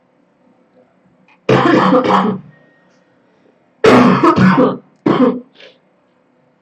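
A girl coughing in harsh fits: one long cough about a second and a half in, then a longer one about halfway through, quickly followed by a short cough and a faint last one.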